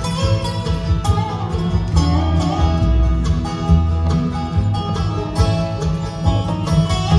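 Live bluegrass band playing an instrumental passage without singing: banjo, acoustic guitars and dobro over a steady upright bass line.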